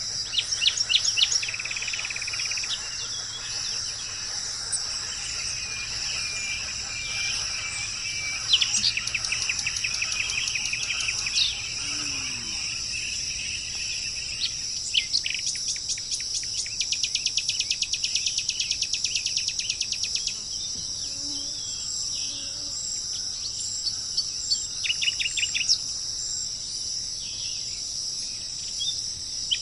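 A steady, high-pitched insect chorus, like crickets or cicadas, with birds calling over it, including several fast runs of rapidly repeated notes.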